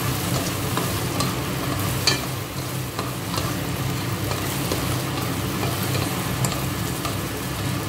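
Chopped okra sizzling as it fries in oil in a pot, stirred with a spatula that scrapes and taps against the pot a few times, over a steady low hum.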